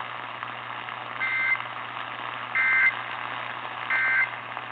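Emergency Alert System end-of-message code: three short, harsh digital data bursts a little over a second apart, over a radio broadcast's steady hiss and low hum. It signals the end of the severe thunderstorm warning broadcast.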